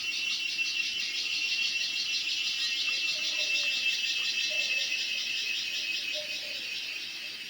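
Cicada song: a loud, steady, rapidly pulsing high buzz that eases slightly toward the end.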